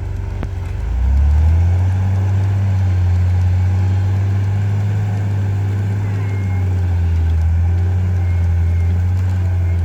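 Off-road vehicle's engine running with a loud, steady low drone that swells about a second in and cuts off abruptly near the end.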